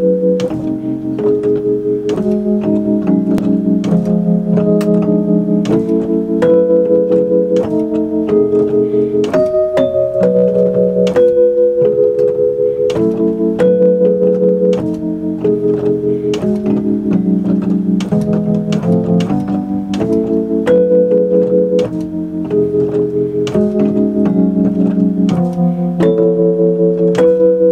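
Fender Rhodes electric piano played solo in a jazz improvisation: sustained chords changing every second or two, with single notes struck above them.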